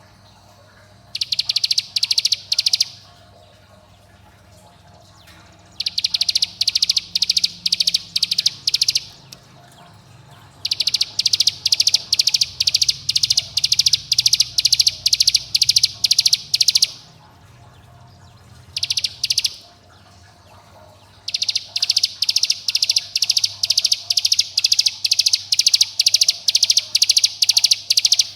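Ciblek gunung (a mountain prinia) calling in fast, rapid-fire runs of sharp repeated notes, several bouts of one to six seconds with short pauses between. This is the rapid 'bren' call used as a lure to provoke other cigun into singing.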